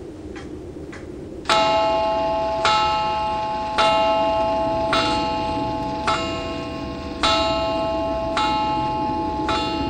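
A clock-like ticking, about two ticks a second. About a second and a half in, a bell starts tolling the same note over and over, roughly once a second, each strike ringing on and fading before the next.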